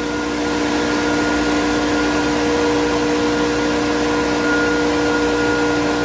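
Electric motor-driven pump running steadily with a constant hum and whine, building pressure toward the pressure switch's 6-bar cut-out.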